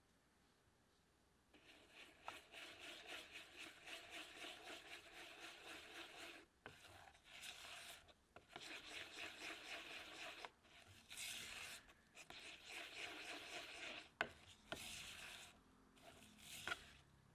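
Silicone spatula stirring and scraping a liquid chocolate and egg mixture around a mixing bowl: quick, rhythmic rubbing strokes that start about a second and a half in and come in several runs with short pauses, with a few sharper taps against the bowl near the end.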